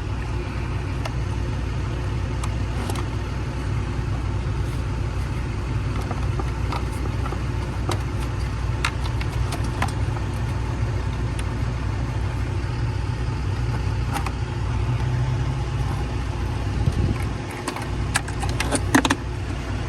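Scattered small clicks and light plastic rattles of a sensor being worked out of a truck cab's blower motor housing, with a cluster of sharper clicks near the end. Under them runs a steady low rumble.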